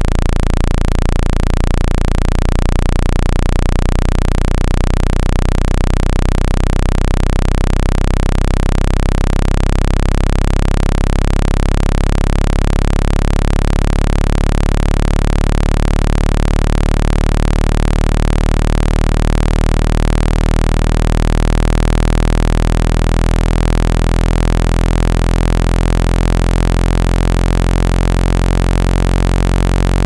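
Synthesized low-pitched water-eject tone, played loud and steady with a buzzy stack of overtones and an even hiss above it. It is meant to vibrate trapped water out of a phone's charging port.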